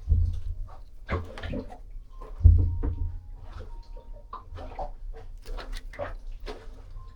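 Hand-tool work on a saildrive's gear shift cable end: irregular small metal clicks and knocks as a wrench turns the adjusting nut on the threaded pin. Three heavy dull thumps fall at the start, about a second in, and about two and a half seconds in, with a few brief faint squeaks.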